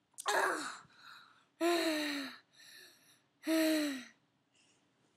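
A boy's voice making three breathy, gasping cries without words. The second and third are longer and fall in pitch.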